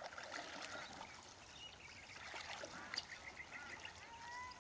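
Faint bird calls: a scatter of short chirps and a brief whistled note near the end.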